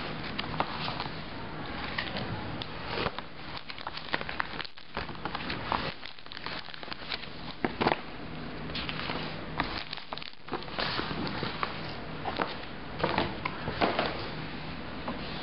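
Paper handling: the pages of a booklet flipped and loose papers in a box shuffled, with scattered light clicks and rustles at irregular moments.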